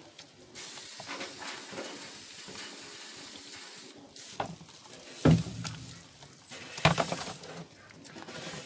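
A steady hissing rustle, then two sharp knocks about a second and a half apart as plastic containers are handled.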